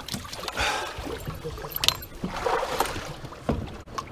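Water sloshing around a small boat in the shallows, with a few knocks and scuffs on the hull as people climb aboard.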